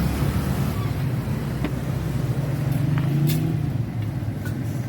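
A motor vehicle's engine running with a steady low hum, swelling a little about three seconds in, with a few faint clicks.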